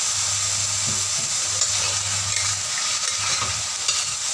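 Freshly blanched vegetables sizzling in hot oil in a stainless steel wok, stirred and scraped with a metal spatula. The sizzle is a steady hiss, with a few small knocks of the spatula near the end.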